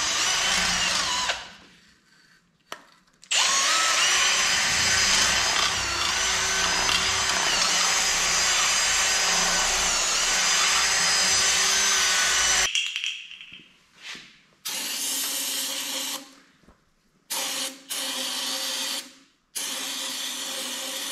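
Cordless drill spinning a wire brush on a long rod inside a Dana 44 rear axle tube: a short run near the start, then a steady whining run of about nine seconds. In the last several seconds, four short hissing sprays of aerosol brake cleaner.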